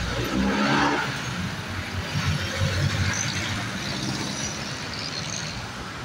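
City street traffic: motor vehicles running past, loudest about a second in.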